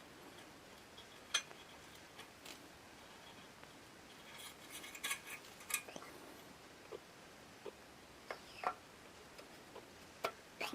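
Irregular clicks and light metallic clinks of small metal lantern parts being handled, with a busier run of taps around the middle.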